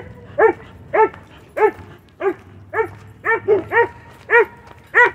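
A dog barking in a steady string, about two barks a second, each a short call that rises and falls in pitch: alarm barking at a kite flying in the distance.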